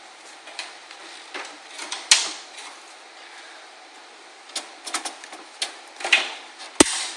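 Irregular small clicks and knocks of screws and metal parts being handled while trying to fit a hard drive into a PC case, with a sharper knock about two seconds in and another near the end.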